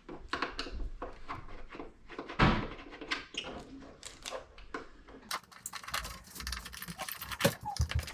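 Irregular clicks, taps and knocks of hard objects being handled, with a louder knock about two and a half seconds in and quicker clicking in the second half.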